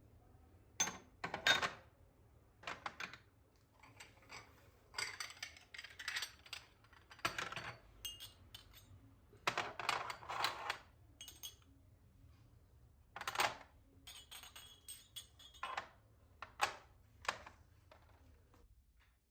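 Dishes, glasses and cutlery being handled and set down: a series of separate clinks and knocks, some ringing briefly.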